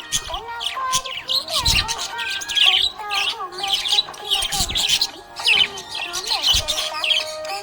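Small pet parrots chirping and twittering rapidly in many short, high calls, over background music.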